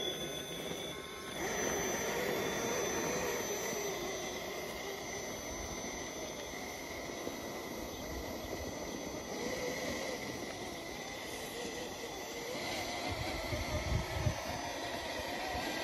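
Electric motor and geared drivetrain of a Traxxas TRX-4 Sport RC crawler (Holmes Hobbies Revolver motor on a Castle SW4 ESC) whining, its pitch wavering up and down with the throttle. A few low thumps come near the end.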